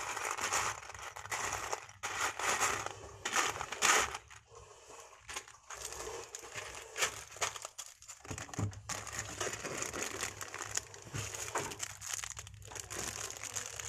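Loose plastic Lego pieces clattering and rattling in a clear plastic tub as fingers stir through them, with many small clicks. Toward the end, plastic polybags crinkle as they are handled.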